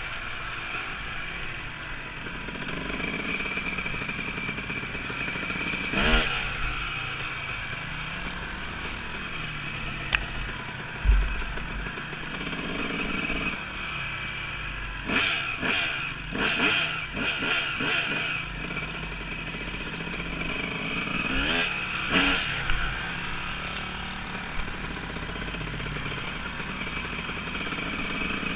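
Dirt bike engine running while riding a dirt trail, revs rising and falling. Several sharp clattering knocks come in a cluster about halfway through, with single ones before and after.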